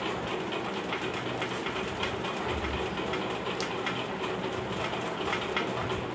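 A steady mechanical hum with a fast, uneven clatter running under it.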